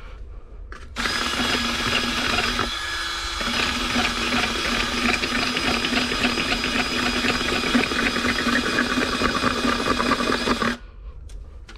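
Handheld power tool, drill-like, running at a steady pitch while boring out a hole in the intake pipe for the mass airflow sensor grommet. It starts about a second in, drops out briefly around three seconds, and stops shortly before the end.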